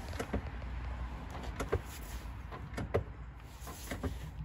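Car brake pedal being pumped while the brakes are bled: faint knocks, loosely in pairs about once a second, over a low steady rumble.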